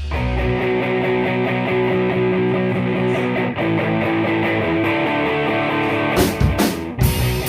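Instrumental section of a rock song: sustained guitar chords over a fast, light ticking beat with little bass. About six seconds in, a few heavy drum hits lead back into the full band.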